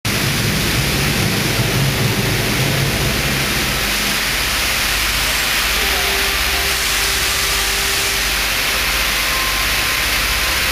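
Stage smoke jets hissing: a loud, steady rush of pressurised vapour blasting from ground nozzles, with a low rumble under it for about the first four seconds.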